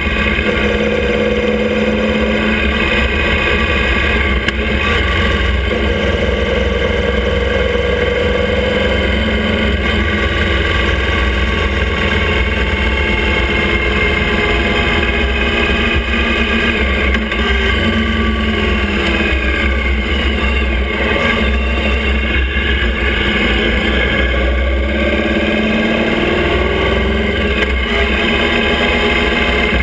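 Motorcycle engine of a sidecar outfit running at road speed, its note rising and falling gently as the speed changes, over steady wind and road noise.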